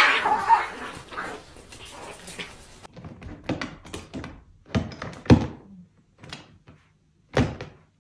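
Cats scuffling, with a string of short, sharp thumps and knocks. The loudest comes about five seconds in, and another falls near the end.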